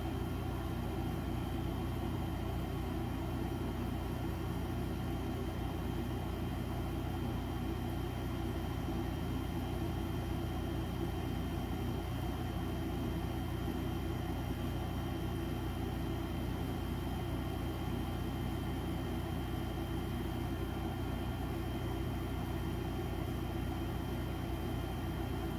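Electric fan running with a steady, unchanging hum.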